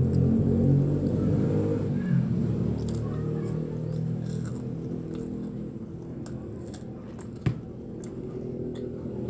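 A child chewing and crunching on krupuk crackers in scattered crisp crackles, over a steady low background drone. There is one sharp knock about seven and a half seconds in.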